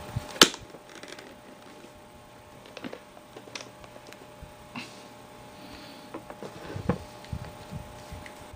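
Handling noise from a pistol and its holster kit being moved about: scattered light clicks and knocks, the sharpest about half a second in, over a faint steady hum.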